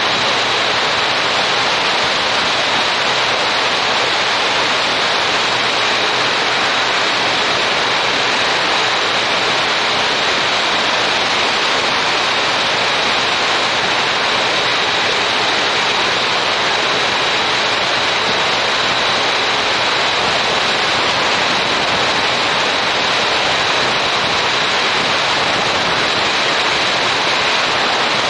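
Steady, loud rush of wind noise on an action camera's microphone on a motorcycle at cruising speed.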